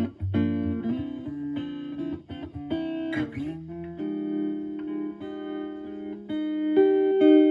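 Clean electric guitar, a Stratocaster, played through a Joyo JF-09 analog optical tremolo pedal into a clean amp: picked notes and chords, some left to ring.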